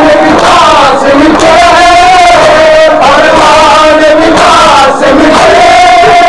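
A large group of men chanting a Shia mourning noha together, loud and continuous, the melody rising and falling.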